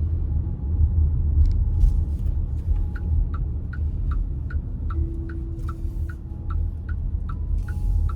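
Steady low road and engine rumble heard from inside a moving car. About three seconds in, a turn-signal indicator starts ticking evenly, about two to three ticks a second.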